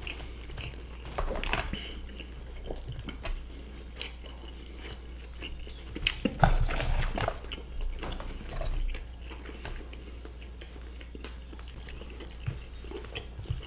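Close-miked chewing and biting of cheddar-covered french fries: soft, wet, crackly mouth sounds that come and go, busiest and loudest about six to seven seconds in, over a steady low hum.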